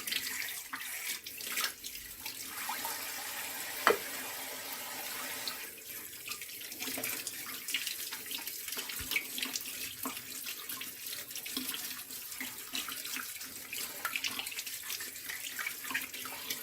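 Kitchen tap running into a sink as plastic juicer parts are rinsed and handled under the stream, with scattered small clicks and one sharp knock about four seconds in.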